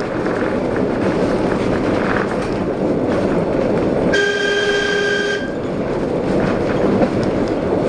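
Streetcar rolling along its rails with a steady running rumble. About four seconds in, its horn sounds one steady blast of a little over a second.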